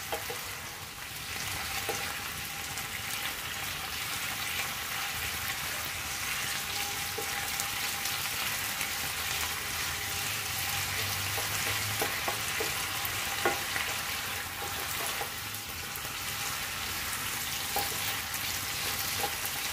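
Pechay (bok choy) sizzling in oil in a nonstick frying pan as it is stir-fried with wooden and plastic spatulas: a steady hiss with a few light taps and scrapes of the spatulas against the pan.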